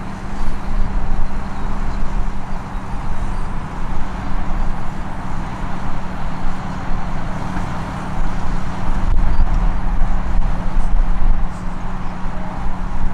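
Tractor engine running steadily, a constant low hum over a rumble.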